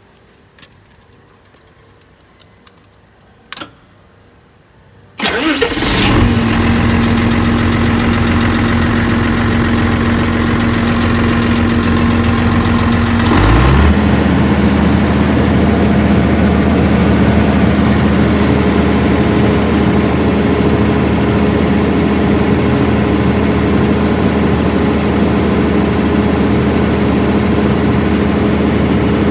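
Nippon Sharyo generator set's diesel engine cranking into life about five seconds in after a couple of faint clicks, then running steadily. About eight seconds later its note shifts and it settles into an even run.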